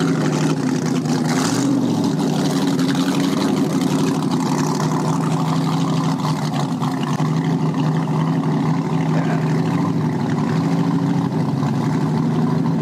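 Large exposed inboard engine of a small open motorboat running steadily at low speed.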